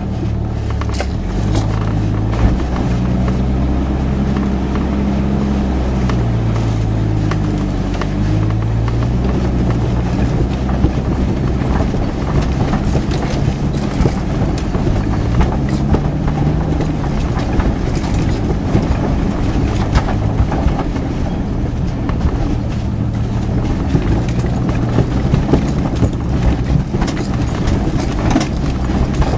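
1989 Jeep Cherokee's engine, heard inside the cabin, running at low speed under load, its pitch rising and falling with the throttle. Frequent short knocks and rattles come through as the Jeep crawls over rocks in a shallow creek bed.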